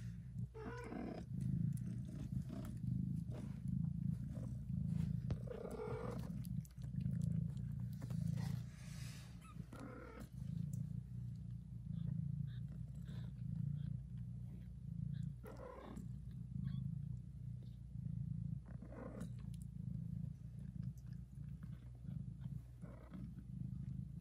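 Mother cat purring very loudly, a steady low rumble that swells and eases with her breathing, while she nurses and licks her newborn kittens. A few short higher-pitched sounds break in over the purr every few seconds.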